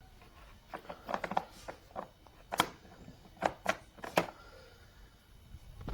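A series of irregular light knocks and clicks, the loudest a few sharp ones between about two and a half and four seconds in, then quiet.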